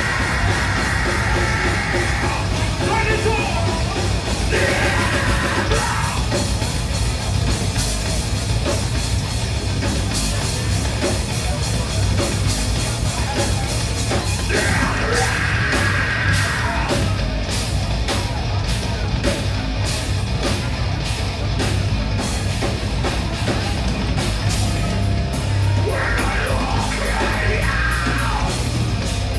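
Heavy metal band playing live: distorted electric guitars, bass and drums with fast, regular cymbal hits, and a vocalist yelling in several stretches.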